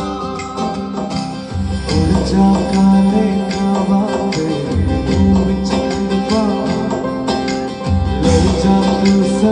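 Background music with a heavy bass line and a regular beat.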